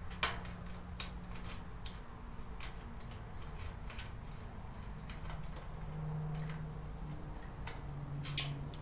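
Scattered light clicks and knocks of storage-cart parts being handled and fitted together, with a sharp click just after the start and the loudest one near the end.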